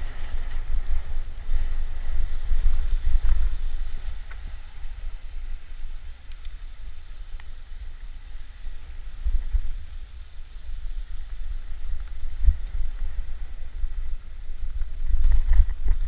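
Wind buffeting the microphone: a low, gusting rumble that rises and falls, with a few faint clicks.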